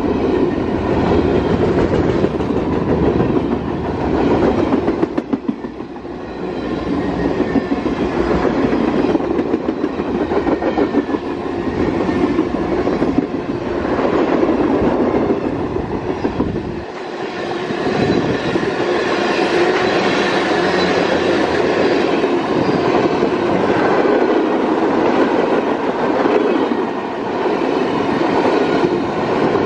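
Freight train cars rolling past close by: a steady rumble of steel wheels on rail with rapid clicking running through it. The sound dips briefly about five seconds in, and the deepest part of the rumble thins out about seventeen seconds in.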